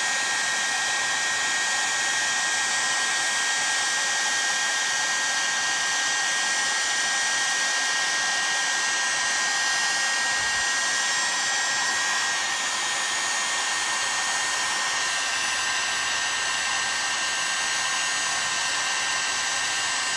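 Electric heat gun blowing steadily on an aluminium chainsaw crankcase, warming the bearing bore to about 230 degrees so the tight crank bearing can be driven in. A thin whine in the rushing air drops out about twelve seconds in, and the sound gets a little quieter.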